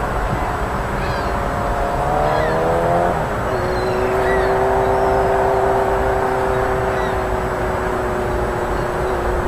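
A distant engine running with a steady hum, its pitch rising slightly about two seconds in and then holding steady, over a constant outdoor rumble. A few faint short high chirps are heard now and then.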